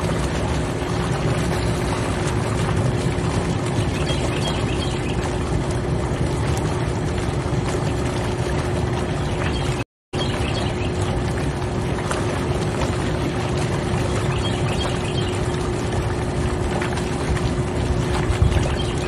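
Hot tub jets and pump running: steady churning, bubbling water with a constant motor hum. It cuts out for a split second about halfway through.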